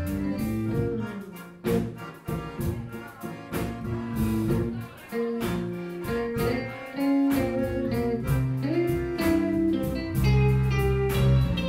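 Live band playing an instrumental passage on electric guitar, accordion, bass and drums, the low end growing louder near the end.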